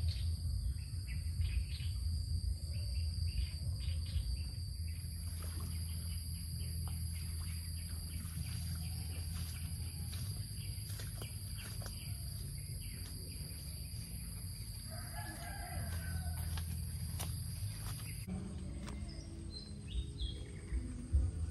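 Countryside ambience: a steady high-pitched insect drone over a low rumble, a rooster crowing for about two seconds three-quarters of the way through, and short bird chirps near the end.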